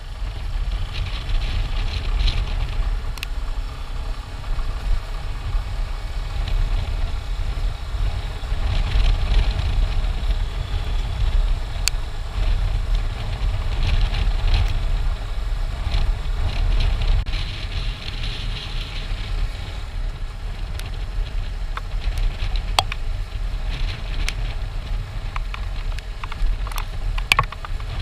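Motorcycle riding at road speed, heard from a camera on the rider: a steady low rumble of engine and wind on the microphone, with a few small sharp clicks.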